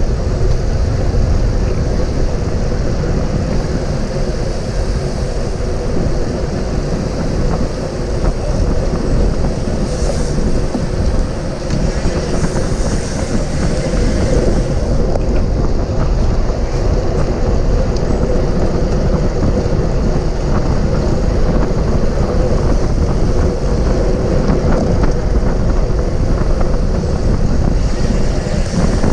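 Steady wind rushing over a GoPro's microphone on a bicycle riding at race speed, with a constant low rumble underneath.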